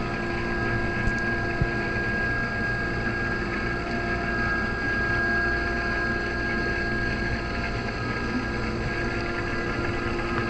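Steady muffled underwater hum in a swimming pool, picked up by a submerged camera: a constant low rumble with several steady tones running through it.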